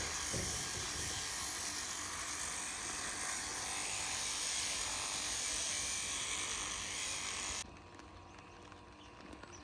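Electric sheep-shearing clippers running steadily with a buzzing hiss, then switched off suddenly about seven and a half seconds in.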